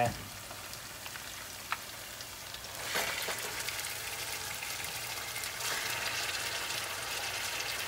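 Food frying in a pan, a steady sizzling crackle that grows louder about three seconds in.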